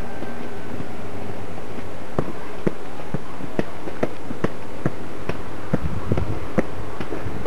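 Footsteps climbing outdoor steps, about two a second, over a steady hiss.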